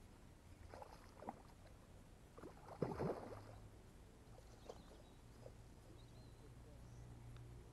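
A hooked trout splashing at the water's surface as it is played on a fly rod: a few short splashes about a second in, then the loudest burst of splashing about three seconds in, and a small splash near the end.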